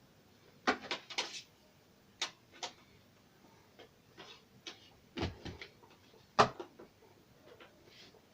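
Irregular sharp clicks and knocks of small hard parts and tools being handled, about a dozen, with the loudest knocks about five and six seconds in.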